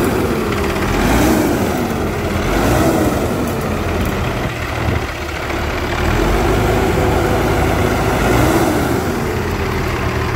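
Caterpillar C15 diesel engine of a 2007 Peterbilt 386 running, with its pitch wavering up and down every second or so.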